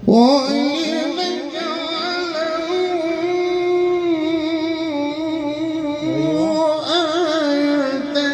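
A man chanting Quran recitation in a melodic style, drawing out long, ornamented notes that waver in pitch with hardly a break.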